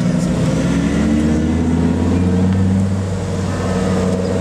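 Car engine running at low revs: a steady deep drone whose pitch shifts slightly, easing off a little about three seconds in.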